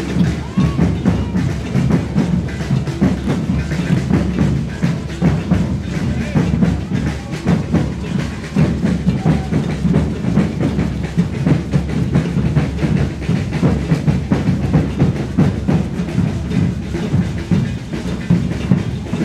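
Maracatu percussion ensemble playing a dense, continuous drum rhythm, led by deep bass drums.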